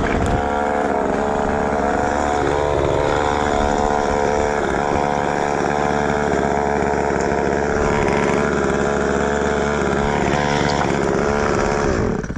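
Two-stroke chainsaw running at high revs, steady with slight dips in pitch as it cuts, then cut off suddenly near the end.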